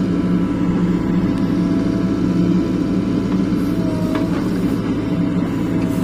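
Mahindra EarthMaster SX backhoe loader's diesel engine running steadily under load as the backhoe arm works its bucket in a trench. A steady whine rides over the engine hum and sags briefly about four seconds in.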